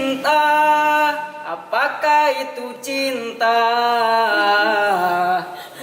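A voice singing long, held notes with slides between them, without instruments.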